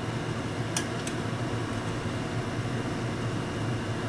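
Two light metallic clinks about a second in, as a metal spoon scoops boiled dumplings out of a steel wok, over a steady whirring hum.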